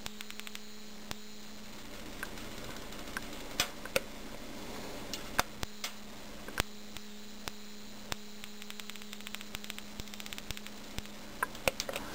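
Sharp, irregular snapping clicks of high-voltage discharges as a disposable-camera flash tube is held against the grid of a 2300-volt electric bug zapper, flashing with each spark, over a steady low hum.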